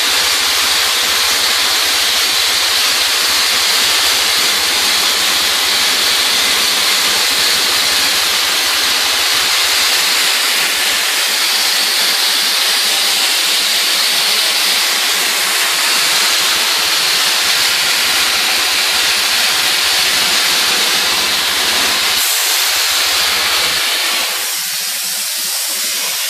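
Vapor abrasive blaster spraying crushed recycled glass and water from a hose nozzle, stripping old paint, stain and lacquer from wood: a steady, loud hiss. The hiss thins and drops a little near the end.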